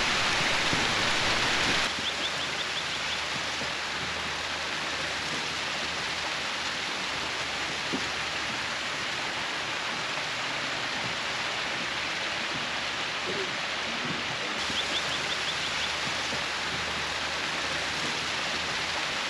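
Steady hissing rush of hot-spring water running over travertine terraces.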